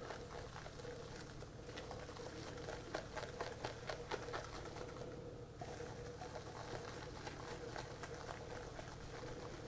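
Spatula stirring beaten egg whites into melted chocolate in a glass bowl, loosening the chocolate mixture: faint, soft, irregular scrapes and squishes over a steady low hum.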